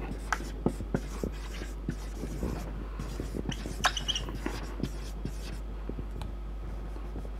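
Marker pen writing on a whiteboard: irregular taps and short scratchy strokes as letters are drawn, with a brief high squeak about four seconds in.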